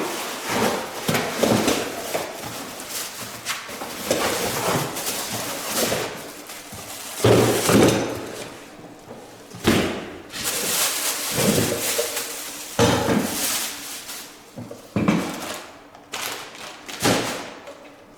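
A cardboard carton and its packing being handled, with rustling and a string of irregular knocks and thuds as the curtain drop controller is taken out and set down.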